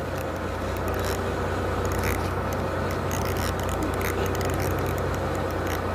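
Steady low hum of a fishing boat's engine, with faint ticks and scrapes from a fishing reel being cranked against a load on the line.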